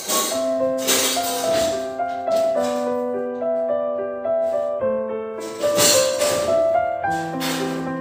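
Instrumental background music: held keyboard chords that change about every two seconds, with a few soft percussive strokes.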